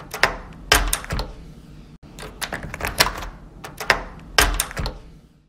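Door lock being turned, locked and then unlocked again: clusters of sharp clicks and clacks from the latch and bolt.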